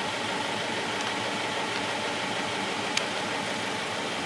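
Suzuki four-cylinder petrol engine idling steadily with an ignition misfire, one cylinder dead. There is a faint click about three seconds in.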